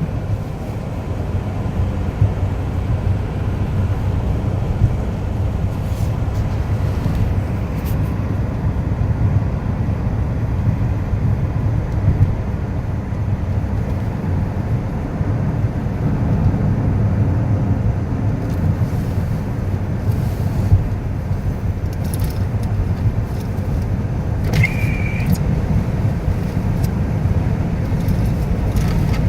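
Steady low rumble of a car driving, heard from inside the cabin, with a few faint clicks and one brief high-pitched squeak near the end.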